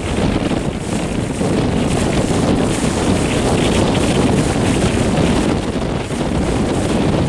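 Wind buffeting the microphone: a steady, dense low rumble with no let-up.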